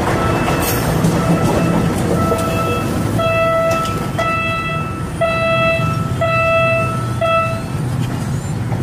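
A Philippine National Railways diesel passenger train runs past and away with a steady low engine and wheel noise. Over it, a horn-like tone sounds in short pulses about once a second, faint at first and louder from about three seconds in.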